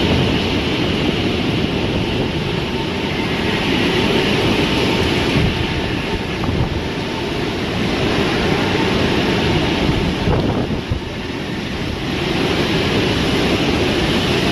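Loud, steady rush of storm wind buffeting the microphone.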